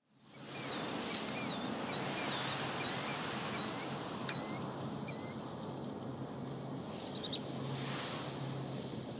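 Outdoor ambience with a steady hiss, fading in at the start. A bird repeats a short whistled call about seven times over the first five seconds, then gives a quick chirp about seven seconds in.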